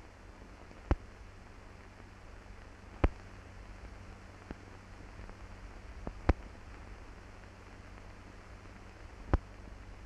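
Steady hiss with a low hum and four sharp pops about three seconds apart: surface noise of an old film soundtrack with no recorded sound.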